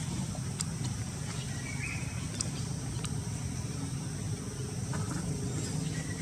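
Forest ambience: a steady high insect drone over a low rumble, with a few faint clicks and short chirps.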